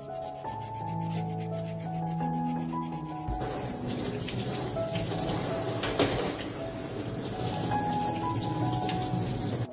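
A spoon scraping the skin off a lotus root in quick, even strokes. About three seconds in, a kitchen tap starts running full onto the root in a steel sink, and the water splashes steadily.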